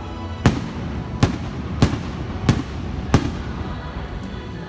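Five firework shell bursts bang in quick succession, about two thirds of a second apart, loud and sharp from close to the launch site.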